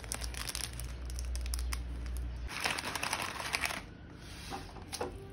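Plastic instant-noodle packaging and sauce sachets crinkling and rustling as they are handled and opened, with a louder rustle about three seconds in.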